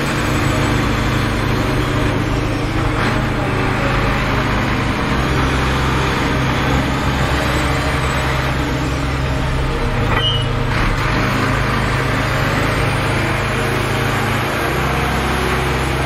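Diesel engine of a loaded Volvo A35 articulated dump truck running under load as it drives, a steady low drone whose note shifts a few times.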